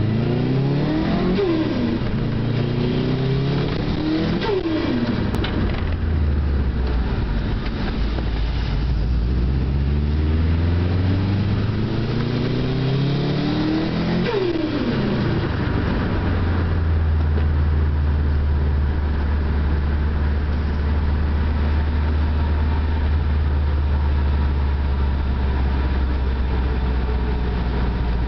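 Turbocharged STI EJ20 flat-four engine accelerating hard, its pitch climbing and then dropping sharply three times as the throttle is lifted for gear changes. With the blow-off valve removed, the Garrett turbo flutters on each lift-off from compressor surge. The engine then holds a steady note for the second half.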